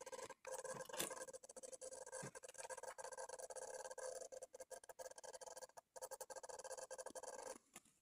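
Small hobby servo faintly whirring and ticking as it creeps its arm slowly round, driven by the controller at its slowest speed setting.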